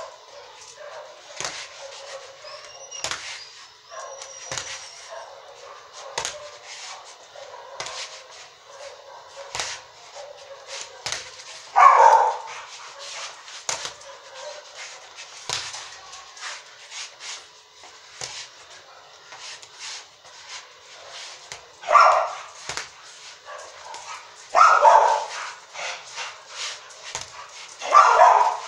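Boxing gloves hitting a reflex ball on a cord: a run of short sharp knocks, irregular at about one or two a second. Four louder short calls, about half a second each, stand out over the knocks, one about twelve seconds in and three in the last seven seconds.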